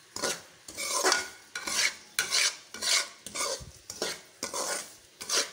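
Metal spoon scraping and stirring semolina around a metal pan, in rough strokes about twice a second. The semolina is being roasted in a little oil until it turns light brown, the stage before the sugar syrup goes in for halwa.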